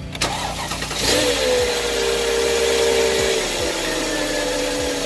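Mercedes-Benz CLS500 V8 engine starting: a click, then the engine catches about a second in with a flare of revs, holds high, and settles down to idle a little past three seconds in. It is running on a newly fitted ignition coil after a misfire.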